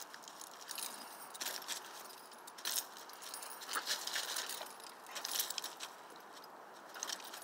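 A dog jumping and scrambling about in dry leaves: irregular bursts of metal jingling from its harness hardware, mixed with rustling leaves, in clusters a second or so apart.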